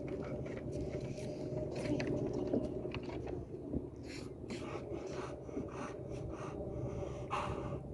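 A dog panting, a run of short quick breaths over a steady low hum, after pulling a magnet-fishing rope up.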